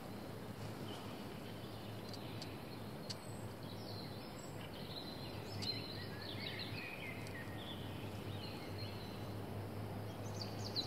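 Faint birdsong, a few short chirps and trills mostly in the middle, over a steady low hum from a distant truck engine.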